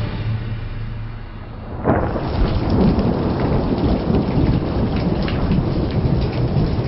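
Thunderstorm: a low rumble, then about two seconds in a sudden loud thunderclap, followed by steady heavy rain with crackles of falling drops.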